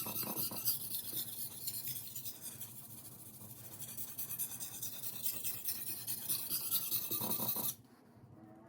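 Knife edge being stroked back and forth on a whetstone, a steady gritty scratching that stops abruptly near the end. The strokes are raising the burr along the edge.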